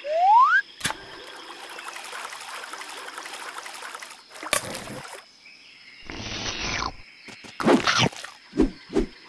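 Added cartoon sound effects: a quick rising whistle at the very start, a click, and a faint hiss. Then come several loud, short noisy bursts near the end as the baby crocodile bites into the fish.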